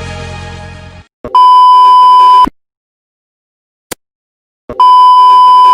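Censor bleep: a loud, steady, single-pitch beep tone, sounding twice for about a second each, with a short click between the two.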